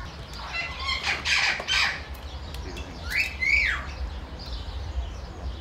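Iberian lynx cub calling while it is held and handled: a couple of harsh, spitting squawks about a second in, then a squealing call that rises and falls in pitch past the three-second mark.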